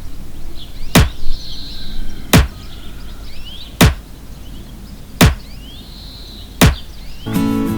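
Five sharp knocks of a tool striking wood, evenly spaced about a second and a half apart, with birds chirping faintly in the background.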